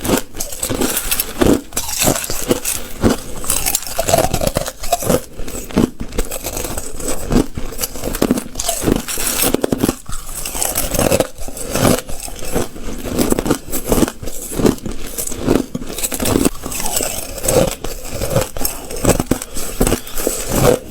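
Ice being bitten and chewed: a continuous, irregular run of crunching and crackling, several crunches a second.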